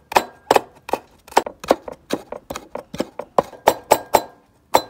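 Chinese cleaver chopping red and green chili peppers into small dice on a wooden cutting board: a run of sharp knocks about three a second, with a brief pause near the end.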